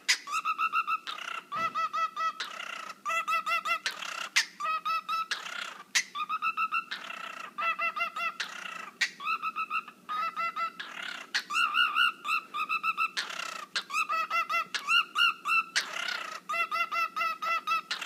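Cockatiel making a dubstep-like vocal imitation: fast runs of clipped, buzzy notes, about ten a second, alternating with short breathy hisses.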